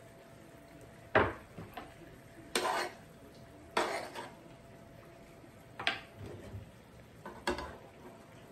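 Metal kitchen tongs clinking and scraping against a nonstick skillet and a ceramic baking dish as cooked chicken pieces are moved from one to the other. There are about five clinks, a second or two apart, a few of them drawn out into short scrapes.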